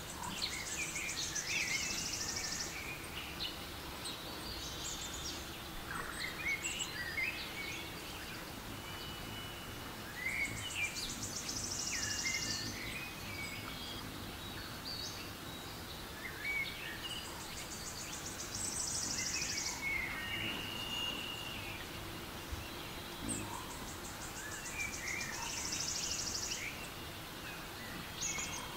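Forest ambience from a nature-sounds relaxation app: scattered birdsong chirps and whistles over a soft background. A high, pulsing trill about two seconds long returns roughly every eight seconds, as the recording loops.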